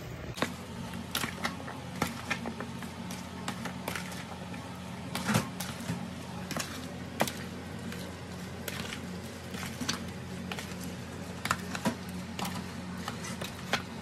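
A plastic spoon stirring chopped fruit in a thick cream-and-yogurt mixture in a plastic bowl: irregular clicks and taps of the spoon against the bowl, the loudest about five seconds in, over a steady low hum.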